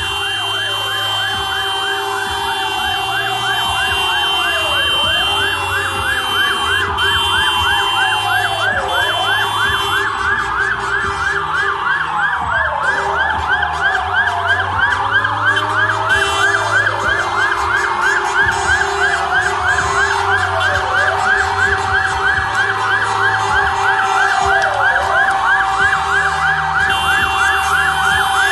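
Several fire engine sirens sounding together: one yelping fast, about three sweeps a second, while another wails slowly, rising and falling about every four seconds.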